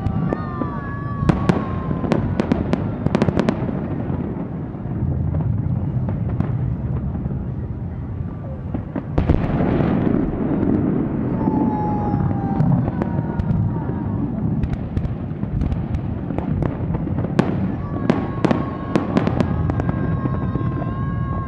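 Aerial fireworks display: sharp bangs and crackles in clusters over a continuous low rumble of bursting shells.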